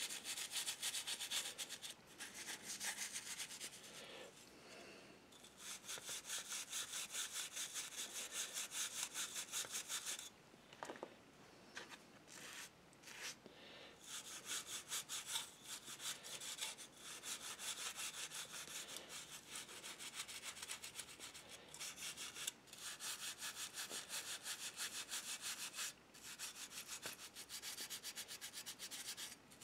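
Toothbrush bristles scrubbing a brass model locomotive shell to remove tarnish, in rapid back-and-forth strokes. The scrubbing comes in bouts with short pauses, including a longer break of a few seconds about ten seconds in.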